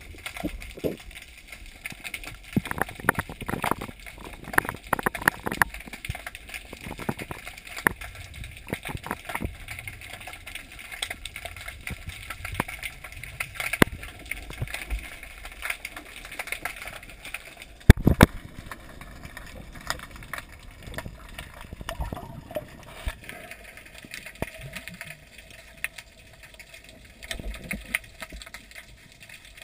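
Underwater sound picked up through a GoPro's waterproof housing: a steady hiss with many irregular clicks and knocks, thickest in the first ten seconds, and one sharp, loud knock about 18 seconds in.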